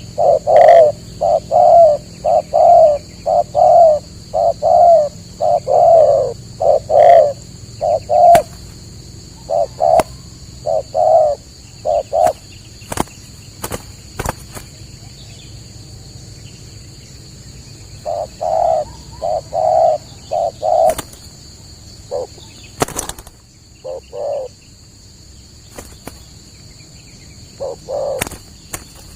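Spotted doves (tekukur) cooing: a long series of short, rhythmic coos that stops about halfway, then starts again in a few shorter runs. A few sharp clicks sound in between, over a steady high-pitched whine.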